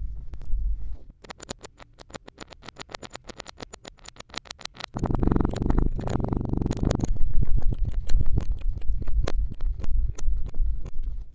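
Kinetic sand being cut and worked by hand: a rapid run of crisp crackling clicks, then from about halfway a louder rough scraping and rubbing with a low rumble, clicks still going.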